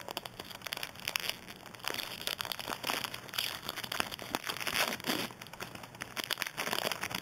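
Baseball trading cards being handled and flipped through by hand: a continuous run of rustling, sliding and clicking card stock.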